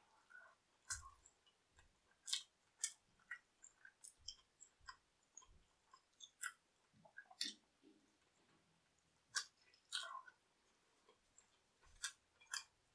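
A person biting into and chewing a piece of heavily topped pizza: irregular sharp mouth clicks and smacks with short quiet gaps between them.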